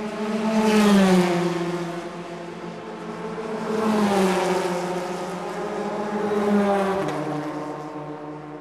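Kyosho dNaNo 1/32 electric micro RC race cars running past on the track three times. Each pass swells to a peak, then its motor pitch slides down as the car goes by.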